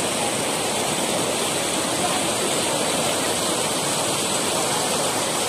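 Steady rushing of muddy floodwater pouring over a submerged low road causeway.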